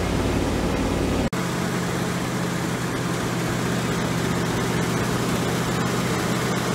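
A 1984 ramp truck's carbureted engine idling steadily just after a cold start, fuel fed by an electric pump. There is a short break in the sound about a second in.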